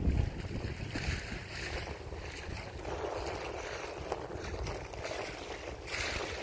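Wind buffeting the microphone with a low rumble, heaviest at the start, over water rushing and splashing along the hull of a sailboat under way.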